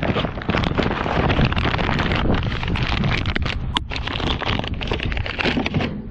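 A thin plastic carrier bag crinkling and rustling as it is stuffed, with a plastic bottle inside, into a plastic litter bin, with wind buffeting the microphone. The crackle is loud and continuous and eases off near the end.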